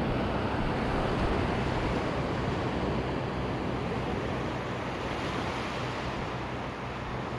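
Surf washing onto a beach, a steady rush of waves, with wind rumbling on the microphone.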